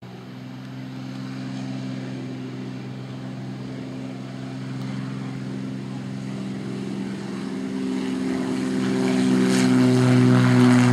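Cessna T206H Turbo Stationair's turbocharged six-cylinder Lycoming engine and propeller at takeoff power during the departure roll and liftoff. The steady engine note grows steadily louder as the aircraft approaches.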